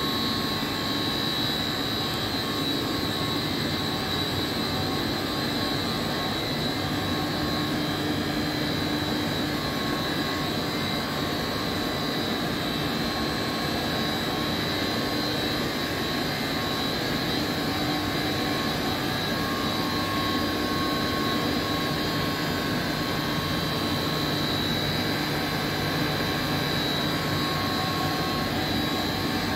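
Steady drone of chiller plant machinery: Trane screw chillers and vertical inline chilled-water pumps running together. A few steady tones ride over the even hum and do not change.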